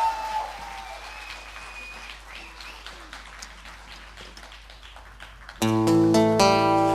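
Crowd noise with a cheer at the start that dies down to a low murmur, then an acoustic guitar starts strumming chords, loud, about five and a half seconds in.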